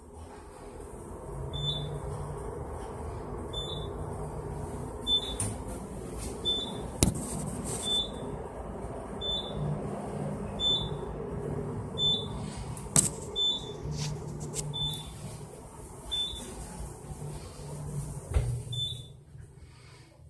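ThyssenKrupp elevator car travelling between floors: a steady running hum and rumble that builds as the car starts and dies away as it stops near the end. Short high beeps sound about once a second throughout, and two sharp clicks stand out about seven and thirteen seconds in.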